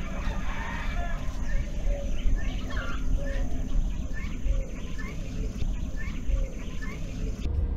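Birds calling with short repeated chirps, about two a second, over a steady low rumble. A thin, steady high whine runs underneath and stops just before the end.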